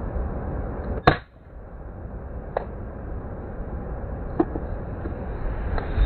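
A single shot from an Uklik bullpup air rifle about a second in: one sharp crack over the steady rush of river water. Two faint clicks follow later.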